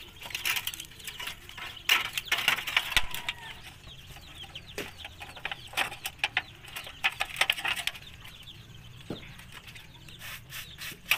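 Free-range native chickens clucking, with short high falling peeps, over scattered clicks and crinkles of thin rusty sheet metal handled as wire is threaded through its holes.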